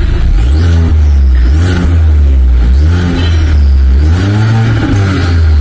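Mercedes W206 C300's turbocharged four-cylinder engine revving through an RES aftermarket valved full exhaust system, the note rising and falling in pitch several times in a row.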